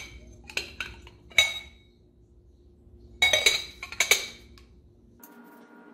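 Glass clinking against glass as a blue opalescent hobnail covered dish is handled: a few sharp clinks with a short ring, the loudest about a second and a half in, then a quick cluster of clinks around three to four seconds in.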